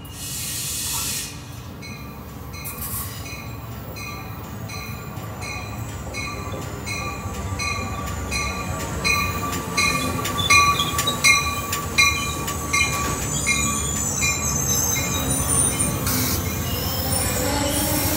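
Shore Line East passenger train pulling into the station, its bell ringing about twice a second over the train's growing rumble. About halfway through, a thin wheel squeal and the clack of wheels over rail joints come in as the stainless-steel coaches roll past.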